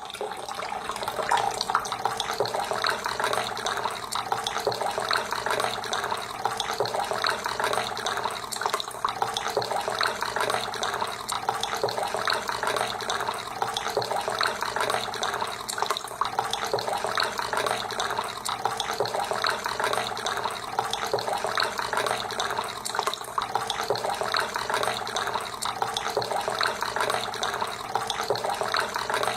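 Water splashing and trickling steadily down a small cement tabletop waterfall fountain.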